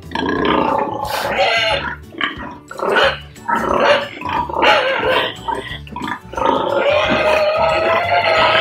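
Pigs vocalizing, with a Duroc boar moving among crated Large White sows, over background music.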